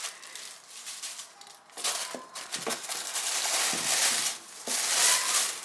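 Packaging rustling and crinkling as a pair of shoes is handled out of its box, with a few small knocks.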